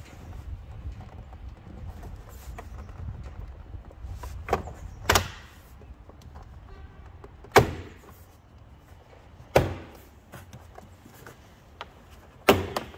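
Plastic retaining clips of a Seat Leon Mk3 front door card snapping free one by one as the trim panel is pulled away from the door by hand: five or so sharp pops a couple of seconds apart, the loudest about halfway through and a quick double pop near the end.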